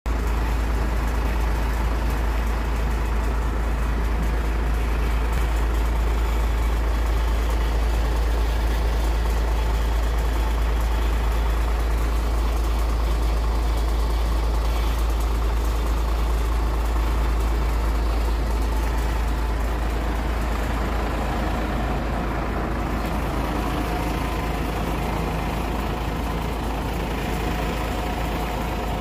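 An engine idling with a steady, unbroken low drone that eases slightly over the last several seconds.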